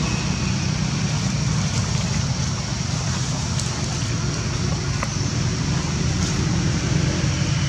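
Steady outdoor background noise: a dense low rumble with a fainter high hiss above it and a few faint ticks, with no distinct animal calls.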